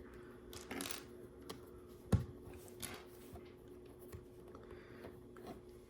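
A few faint clicks and light rustles of plastic LEGO pieces being handled and sorted, the sharpest click about two seconds in, over a faint steady hum.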